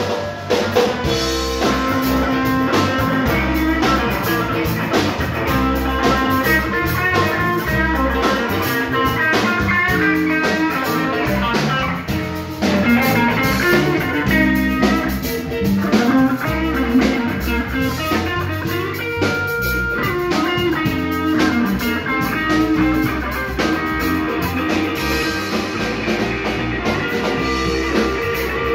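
Blues band playing an instrumental passage, with guitar to the fore over bass and drums.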